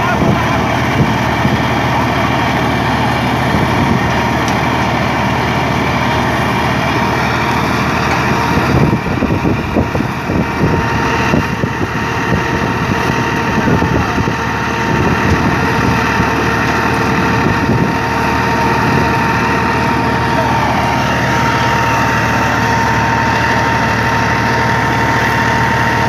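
Tractor-driven stationary wheat thresher running steadily while threshing, the tractor engine and thresher drum making a constant drone with a thin steady whine over it.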